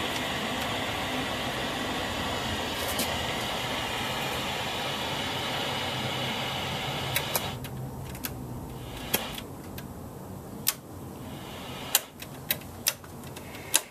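Steady hiss of static from a vintage Zenith 25CC50 colour television's speaker, which stops about seven and a half seconds in; after that, a run of sharp, irregular clicks.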